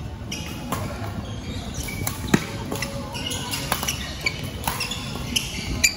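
Badminton rally: sharp racket strikes on the shuttlecock, the loudest about two seconds in and near the end, with short shoe squeaks and scuffing footsteps on the court floor between them.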